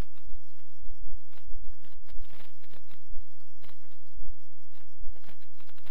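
Steady low hum with many scattered clicks and crackles.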